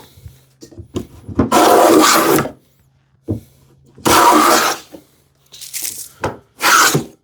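Combination plane plowing a groove in a wooden rail: four shaving strokes, the first about a second long and the rest shorter, with a few sharp knocks between them as the plane is set back for the next pass.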